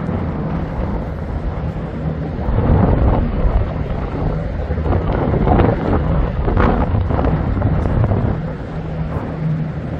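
Wind buffeting the microphone over a low, steady boat-engine rumble on the harbour; the rush swells in the middle and eases off near the end.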